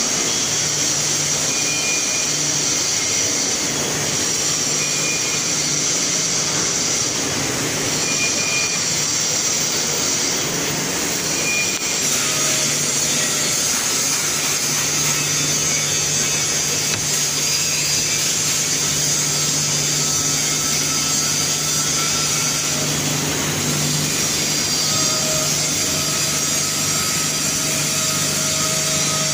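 Steady drone of a continuous mercerising range running: its geared drive motors and fabric rollers turning, with a low hum, a few faint steady tones and a high hiss over it.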